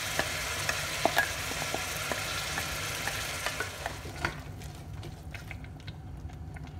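Vegetables and freshly added ground masala paste sizzling in oil in a pressure cooker pot, with a wooden spoon scraping and clicking against the pot as it stirs. The sizzle dies down about four seconds in, leaving mostly the spoon's clicks.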